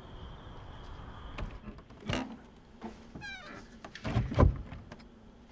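Wooden double door being pulled open, with knocks and a heavy thump that are loudest about four seconds in. About a second before, a single short high-pitched cry.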